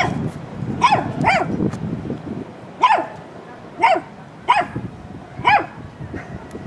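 A puppy yapping: about seven short, high-pitched barks at uneven intervals.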